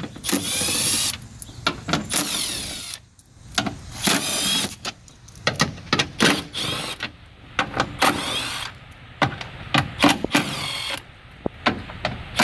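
A power driver running in several short bursts with a whining pitch, backing out the 8 mm and 10 mm bolts inside a pickup's rear door.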